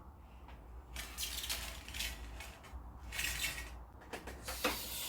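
Rustling and scraping of materials being handled during handiwork, in three short stretches.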